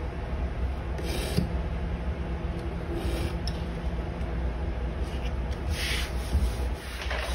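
A knife cutting leather along a metal ruler and the ruler shifted on a plastic cutting mat: a few short scraping strokes about a second in, around three seconds, and near six and seven seconds. A steady low hum sits underneath.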